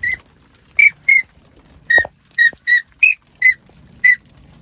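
A 4-in-1 duck call whistle blown in about nine short, high toots, some single and some in quick pairs.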